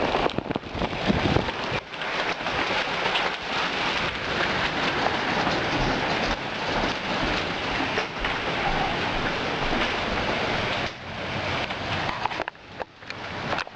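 Hailstorm with heavy rain pelting down, a dense steady hiss of countless hits with sharper single hailstone impacts mixed in; it briefly thins out a couple of times near the end.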